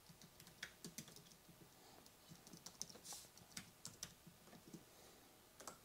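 Faint typing on a computer keyboard: an irregular run of quick key clicks.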